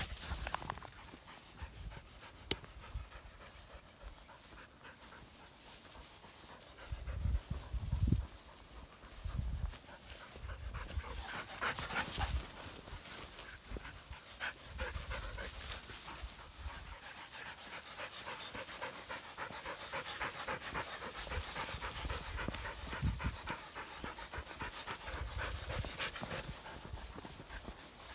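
Belgian Malinois panting hard and fast close by, a quick steady run of breaths that grows stronger partway through. A few low thuds come about seven to ten seconds in.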